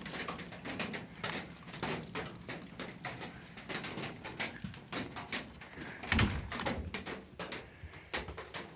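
Rain dripping, a steady scatter of irregular small taps, with a louder knock about six seconds in.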